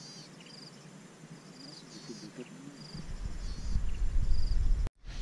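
Short, high, buzzy insect chirps repeating about once a second. About three seconds in, a loud low rumble of wind or handling on the microphone takes over and cuts off abruptly near the end.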